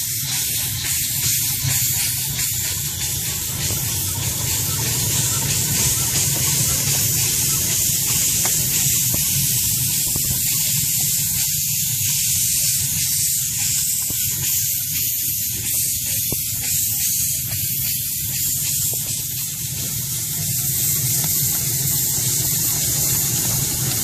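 Live-steam scale model of a Union Pacific Challenger locomotive hissing steadily as steam escapes from it, over a low steady rumble.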